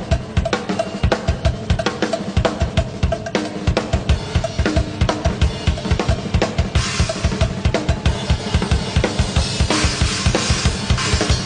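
Live rock drum kit solo: fast, dense bass drum strokes under snare and tom hits, with cymbals washing in about seven seconds in.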